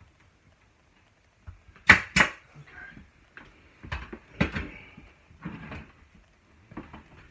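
Pneumatic nail gun firing into wooden trim: two sharp shots about a third of a second apart near two seconds in, then two softer shots around four seconds, with light knocks of handling between.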